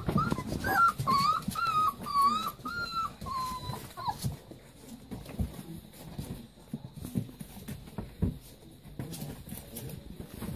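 Leonberger puppy whining in a string of short, wavering high whimpers over the first four seconds, then light scuffling and knocks of the puppies moving about.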